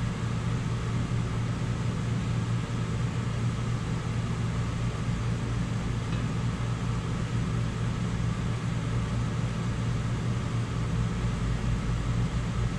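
Steady low mechanical hum with an even hiss of moving air, as from a running fan, holding level throughout.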